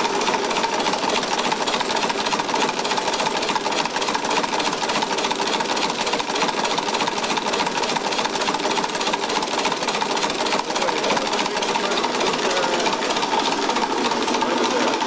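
Homemade two-stage compressed-air engine, converted from an old two-stage air compressor, running steadily with a rapid, even clatter and a steady high tone under it. The clatter comes from heavy valve springs slapping the valves against the cams.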